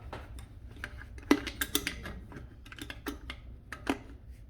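Irregular sharp clicks and taps, the loudest about a second in, from wires being pushed back into a garbage disposal's wiring compartment.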